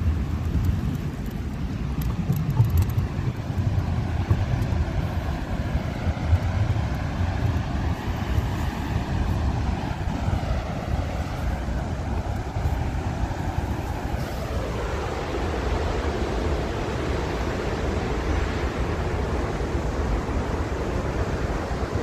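Steady roar of Montmorency Falls, a tall waterfall plunging into its basin, under a low rumble of wind on the microphone. About two thirds of the way through, the roar turns brighter and hissier.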